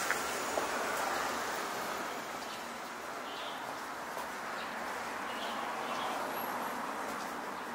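Outdoor background noise, a steady hiss that swells and fades slowly, with small birds giving short faint chirps now and then.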